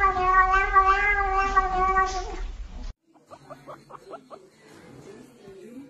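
A domestic cat's long, wavering meow, held as one drawn-out call that is cut off abruptly about three seconds in. Then a guinea pig makes quiet short squeaks in quick succession, several a second.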